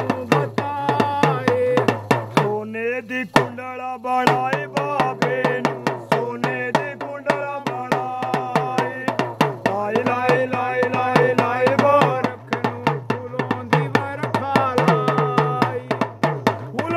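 A small two-headed hand drum beaten in a fast, steady rhythm while a man sings a devotional folk song over it.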